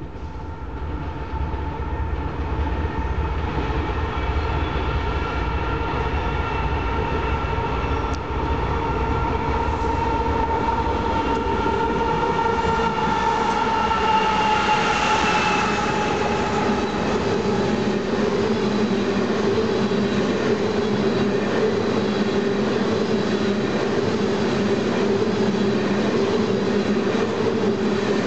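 Diesel freight locomotives approach and pass, growing louder over the first few seconds; a whine in their sound drops slightly in pitch as they go by about halfway through. A long string of loaded oil tank cars follows, their wheels rolling steadily on the rails.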